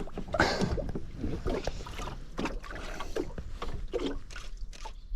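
Irregular knocks, thuds and splashy noises of handling on a small boat, over a steady low rumble.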